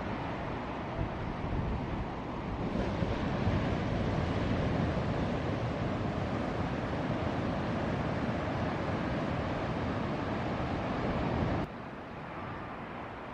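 Ocean surf rushing and breaking, with wind noise on the microphone. The noise swells a few seconds in, then drops off abruptly near the end.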